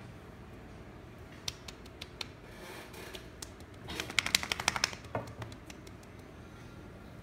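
A few single clicks, then a quick rattling run of clicks and knocks about four seconds in, as a playful puppy lunges at and bumps the phone.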